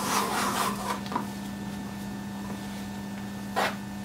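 A plastic sugarcraft cutter rubbing and scraping as it is pressed and slid around over modelling paste on a plastic cutting mat, strongest in the first second and ending with a click. A brief rustle comes about three and a half seconds in, over a steady low hum.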